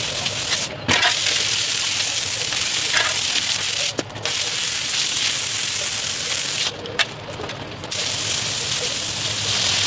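Pressure washer's water jet spraying on paving stones: a steady, loud hiss that stops briefly about a second in and again at about four seconds, then for about a second near the end.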